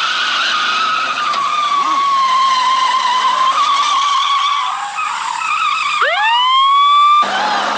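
Car tyres screeching as the sedan lurches hard away from a standing start, a wavering squeal lasting about five seconds. About six seconds in, a police siren winds up in a rising wail, holds for about a second, and cuts off abruptly.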